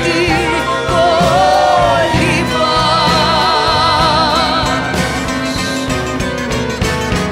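Female voices singing long, wordless held notes with a wide vibrato over a live band playing a Greek rebetiko song; the singing ends about five seconds in and the band plays on with percussion.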